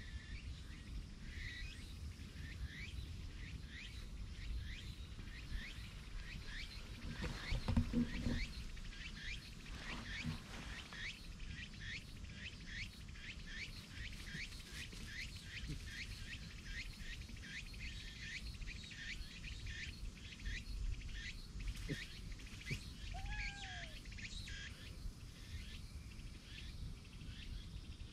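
Outdoor ambience: short high chirps repeat about two to three times a second over a low rumble of wind. A brief louder burst of noise comes about eight seconds in, and a single short falling call comes near the end.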